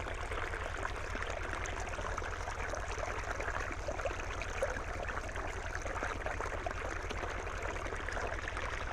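Water running steadily across a wet rock slab where chromite ore is being washed by hand, with a steady low hum underneath.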